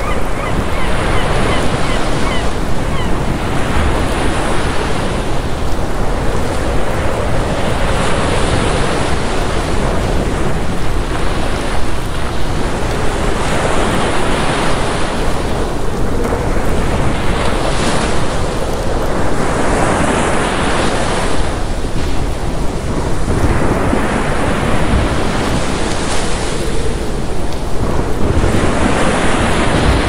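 Ocean waves breaking against a seawall and washing over the promenade: a continuous rush of surf that swells with each breaking wave every few seconds.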